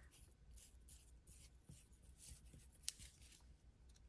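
Faint, repeated soft swishes of a glue brush spreading decoupage glue over paper, with a single sharp tick about three seconds in.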